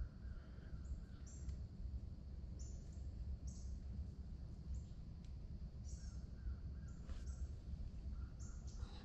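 Birds calling faintly and irregularly, with crow-like caws, over a steady low rumble.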